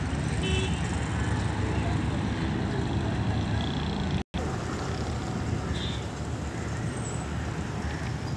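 Steady low outdoor rumble of road traffic, which cuts out for an instant about halfway through.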